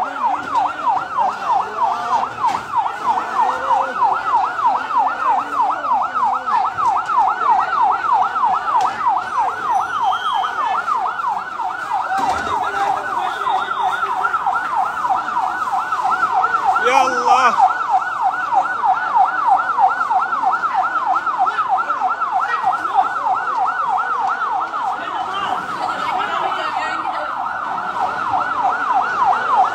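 Fire engine siren on a fast yelp, sweeping up and down about three to four times a second without a break.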